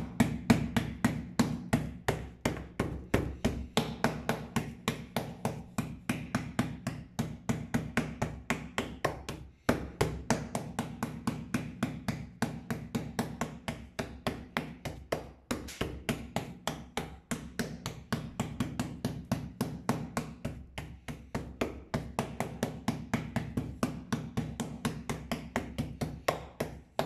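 Meat pounder striking a roe deer steak under plastic film on a plastic cutting board, flattening and widening it. The blows are rapid and steady, about four to five a second, with a short break about ten seconds in.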